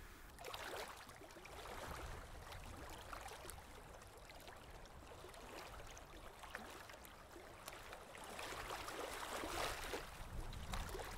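Faint rushing, whooshing noise that swells and fades several times and is loudest near the end, with a few soft clicks.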